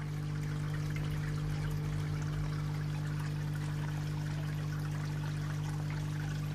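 Water splashing and trickling steadily into a raised garden koi pond from its inflow, with a steady low hum underneath.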